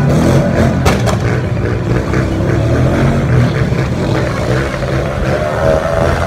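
Motorcycle engines running in the street, with a few sharp cracks near the start, the loudest about a second in.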